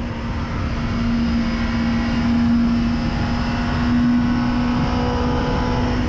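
Motorcycle engine held at steady high revs, a constant-pitched drone with no rise or fall.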